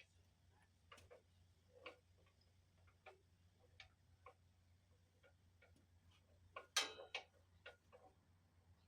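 Quiet, irregular clicks and light knocks from hand work on the machine, spaced about a second apart, with a brief louder clatter about seven seconds in. A faint low steady hum sits underneath.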